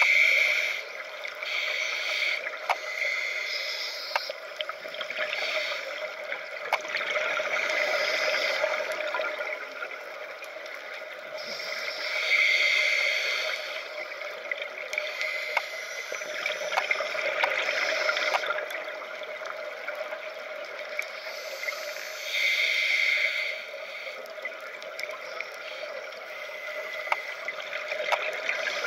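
Scuba diver breathing through a regulator underwater, heard through a camera housing: exhaled bubbles rush and gurgle in surges every few seconds over a steady underwater hiss, with scattered faint clicks.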